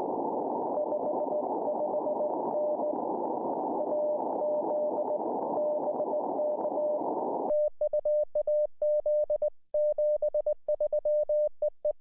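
Morse code (CW) tone near 600 Hz from an amateur radio transceiver: at first a keyed signal heard through steady receiver hiss, then, from about seven and a half seconds in, a clean, louder keyed tone of dots and dashes with the hiss gone.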